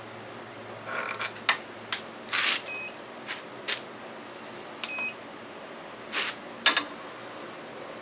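Scattered sharp clicks and knocks of tools being handled at a wood lathe, with two short electronic beeps. A faint steady high whine sets in about five seconds in.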